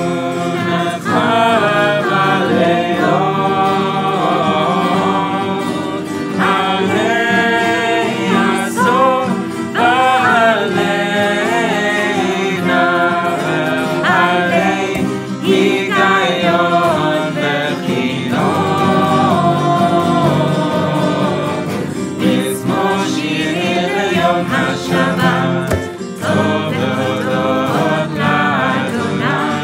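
A mixed group of men's and women's voices singing together, with acoustic guitars strumming along.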